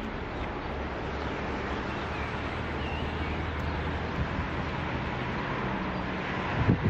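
Steady background rumble and hiss with a low hum, and two or three short knocks near the end.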